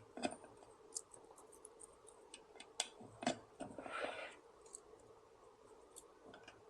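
Faint scattered clicks and taps of small wire bird spikes being pushed into holes in the plastic housing of a Davis Vantage Pro2 weather station sensor suite, with a brief rustle about four seconds in.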